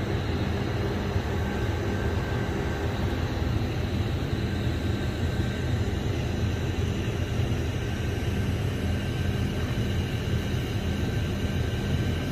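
Crane engine running steadily while it holds the hot tub aloft, a constant low rumble with a faint steady whine above it.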